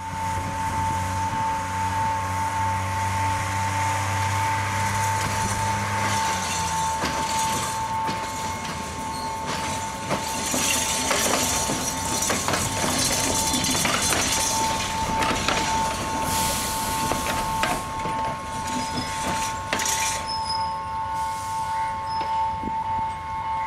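Sri Lanka Railways railbus, a road bus converted to run on rails, moving slowly along the track: its engine hums low at first and drops away about six seconds in, then its wheels clack and knock over rail joints and points as it passes close by. A steady high-pitched whine runs underneath.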